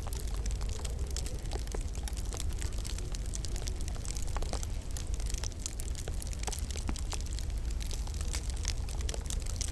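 Wood fire crackling in a log burner: a dense, irregular scatter of sharp pops and snaps over a steady low rumble.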